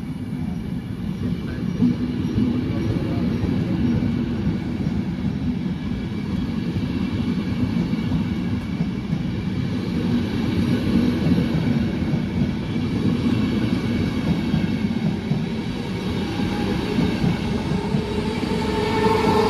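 Running noise of a moving passenger train heard from inside a piano ribassato double-deck coach: a steady rumble of wheels on track. A whine of several tones sets in near the end.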